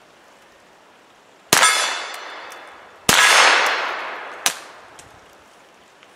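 Two shots from a Mossberg Blaze .22 LR rifle, about a second and a half apart, each followed by the long ring of a steel target being hit; a sharp click comes about a second after the second shot.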